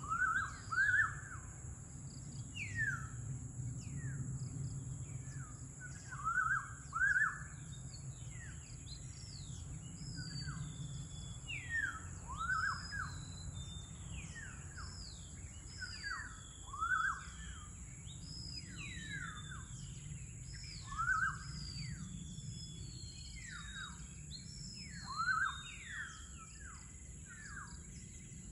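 Several birds calling in the early-morning chorus: a louder arched call, often given twice in quick succession, comes back every few seconds among many quicker falling whistles from other birds. Under them run a steady high-pitched hum and a low rumble.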